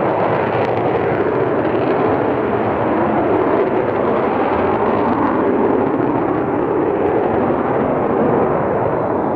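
Loud, steady jet roar from an Avro Vulcan bomber's four Rolls-Royce Olympus turbojets as it flies its display overhead.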